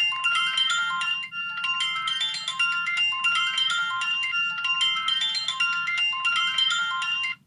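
Music-box melody of high chiming notes, a repeating tune that cuts off suddenly near the end.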